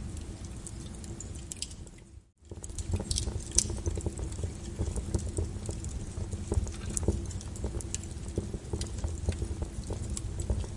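Fire crackling: irregular pops and snaps over a steady low brown-noise rumble. The sound briefly dips out a little over two seconds in, then returns.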